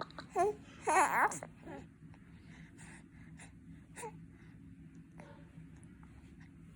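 Baby whimpering and fussing with a rising and falling voice about a second in, then a single short hiccup about four seconds in.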